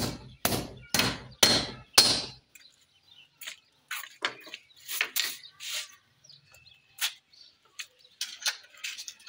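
Hammer blows on the frame of a fibreglass window awning being fixed in place, about two a second, stopping about two seconds in. Scattered lighter taps and clicks follow.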